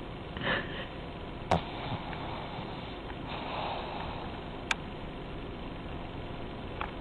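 Pekingese snoring in its sleep, a soft snore about every three and a half seconds over a steady hiss, with a few sharp clicks between them. The snoring is typical of a flat-faced breed.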